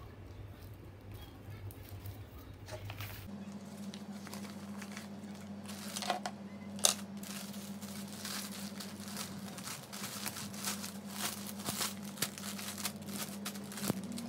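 Paper and plastic packaging rustling and crinkling as a parcel's contents are handled, with scattered small clicks and one sharp click about seven seconds in. A low steady hum underneath.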